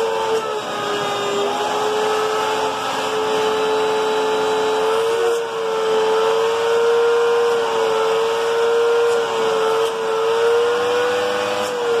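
Hoover Agility Cyclonic bagless upright vacuum cleaner running, its motor giving a steady whine whose pitch wavers and dips slightly now and then.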